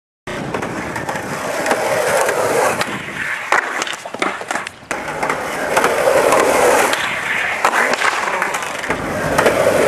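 Skateboard wheels rolling on rough asphalt with a steady grinding rumble. About three and a half seconds in comes a quick clatter of sharp knocks as the board hits the ground when the rider bails a trick, then the rolling picks up again.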